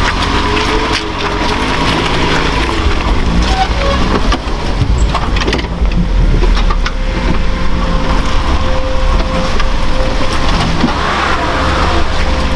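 Engine of an off-road truck working hard, its pitch rising and falling as the throttle changes, with scattered knocks and clunks.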